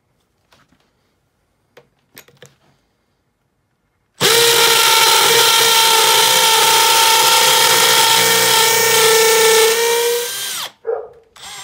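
Makita XPH07 brushless cordless hammer drill in hammer-drill mode at high speed, boring a masonry bit into a concrete block. A few light handling clicks come first. About four seconds in, a loud, steady hammering whir starts and runs for about six seconds, then winds down in pitch as the drill stops at the depth gauge. A brief second spin-up follows near the end.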